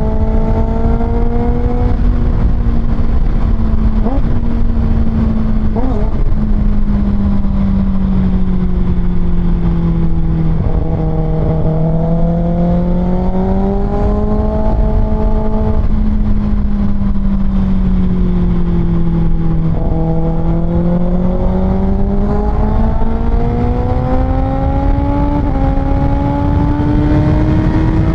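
Kawasaki Ninja ZX-6R's 636 cc inline-four with an Austin Racing exhaust, heard from the rider's seat while riding. The engine note slowly falls and rises with the throttle several times, then climbs steadily near the end, over a constant low wind rumble.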